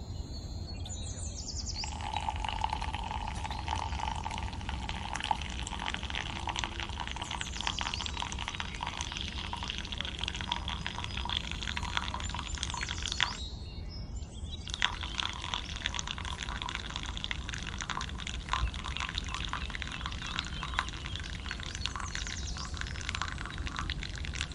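Water pouring from a small plastic toy watering can onto damp sand, a steady trickling splash that breaks off for about a second and a half around halfway through, then resumes.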